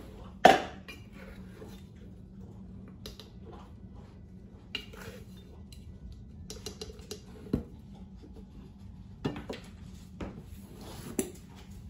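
Stainless steel canister and measuring spoon handled while powdered sugar is spooned out: a sharp metal clink about half a second in, then light scraping and scattered clinks and taps of spoon and lid on the metal canister, more of them near the end as the lid is put back on.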